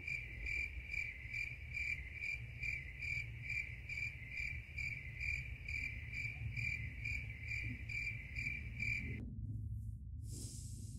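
Cricket chirping steadily at about two chirps a second over a low rumble. The chirping cuts off suddenly near the end and is followed by a short hiss.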